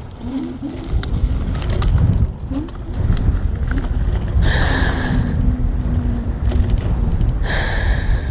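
Ride noise from a TRBK-M2 electric hyperscooter on a rough dirt trail, heard from a helmet mic: a steady deep rumble of wind and terrain, with a faint motor whine that rises and falls with throttle. Two short hissing bursts cut in, about four and a half seconds in and again near the end.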